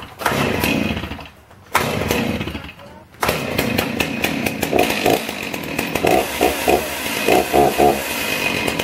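Stihl two-stroke chainsaw being started: it fires briefly and dies twice, then catches about three seconds in and keeps running steadily.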